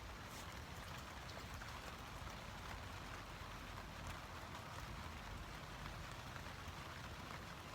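Rain falling steadily on a tent, heard from inside: a faint, even patter with scattered light drop taps.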